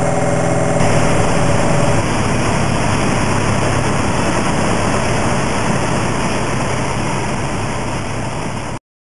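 Piper PA-28's piston engine and propeller heard from inside the cabin in flight on approach: a steady drone mixed with airflow noise. The level eases down slowly, and the sound cuts off abruptly near the end.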